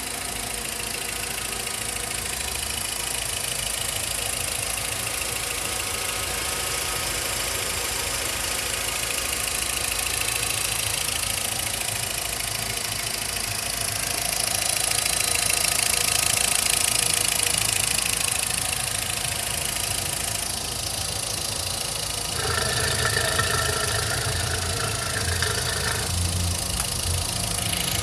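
Volkswagen Voyage 1.6 engine idling with a rapid ticking noise, which the owner takes to come from the fuel injectors rather than the camshaft; it appeared after the timing belt and tensioner were replaced. A steadier, higher tone joins for a few seconds near the end.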